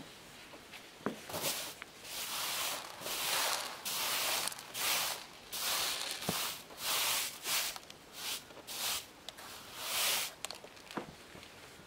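Hand brush sweeping scattered rabbit droppings across a low-pile carpet: a dozen or so quick brushing swishes, about one or two a second, that stop about ten and a half seconds in.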